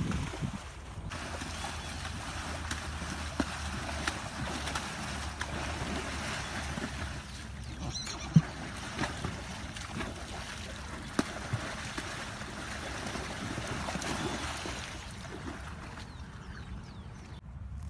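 Water splashing and sloshing as horses wade through a shallow pond, with wind buffeting the microphone. A few short knocks, the loudest a low thump about eight seconds in.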